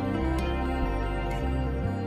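Calm new-age background music: sustained notes over a low bass line that moves to a new note every half second or so.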